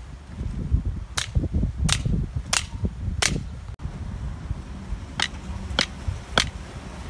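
Sharp knocks of a length of wood striking the top of a wooden stake, driving it into the ground: four blows about two-thirds of a second apart, a short pause, then three more.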